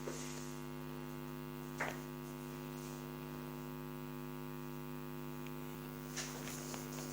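Steady electrical mains hum with a buzzy ring of overtones, with a faint click about two seconds in.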